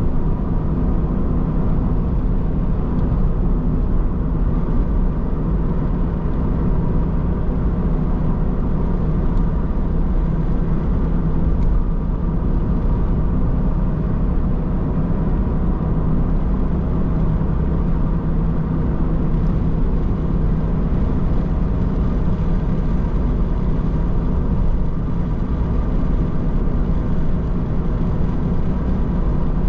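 A car driving along steadily: continuous engine and road noise with no change in pace.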